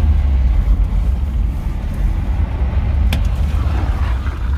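Car engine and tyre noise heard from inside the cabin while driving on a snowy track: a steady low rumble.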